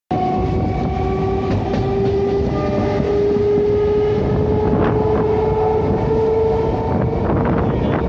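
Eastern Railway suburban EMU train on the run: its traction motor whine rises slowly in pitch as the train gathers speed, over a steady rumble of wheels on the rails, with a few short clicks from the track.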